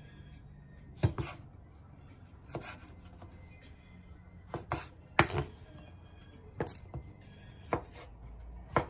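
Knife cutting boiled pork belly into thin strips on a wooden cutting board: single irregular knocks of the blade striking the board, about nine in all.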